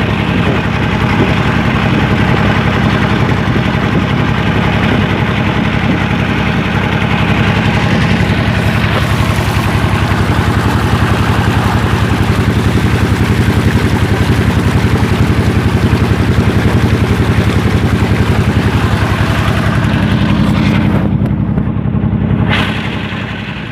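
A small engine running steadily close by, with a fast, even beat, dropping in level near the end.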